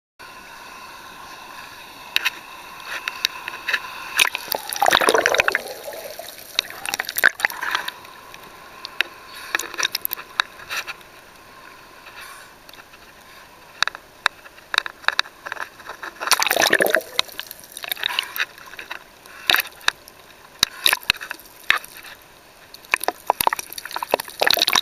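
Sea water sloshing and gurgling, heard from underwater and at the surface among waves, with many sharp clicks and louder rushing surges about five seconds in and again around seventeen seconds.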